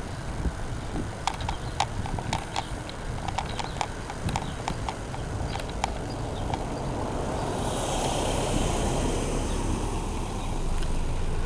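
Footsteps on hard ground: a quick, irregular run of sharp clicks for about the first six seconds. After that a hissing noise swells and fades.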